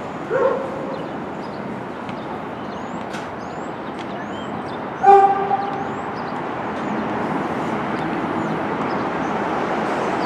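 A 1-line subway train's wheels and motors rumbling as it approaches on the elevated track over the switches, the rumble building over the last few seconds. A dog barks about half a second in and again, louder, about five seconds in, and small birds chirp faintly.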